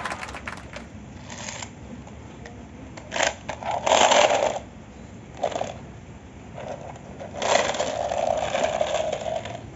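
Battery-powered red toy rabbit with a light-up dome, its motor and plastic parts whirring and rattling in a few bursts, mixed with handling noise.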